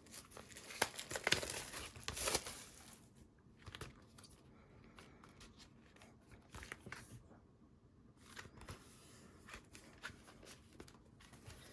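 Plastic shrink-wrap on a CD album being torn and crinkled open by hand: sharp crackling and tearing, busiest in the first three seconds, then only scattered crackles.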